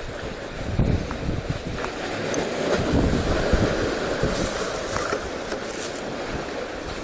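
Sea waves washing and wind buffeting the microphone, swelling into low rumbles about a second in and again around three seconds, with a few faint clicks.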